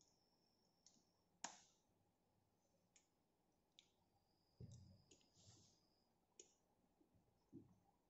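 Faint clicks from handling a Nikon D5300 DSLR fitted with an 18-55mm AF-P lens, with a thin high steady tone twice, each lasting about a second. Soft low thumps come about halfway through and near the end, as the camera is set down.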